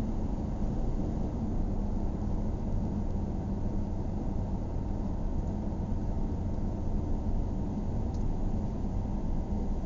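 Steady low rumble of a car's engine and tyres on the road while driving, heard inside the cabin.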